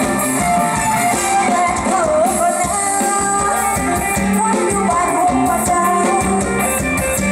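Live mor lam sing band playing over a PA with a steady drum beat, a woman singing the melody into a microphone.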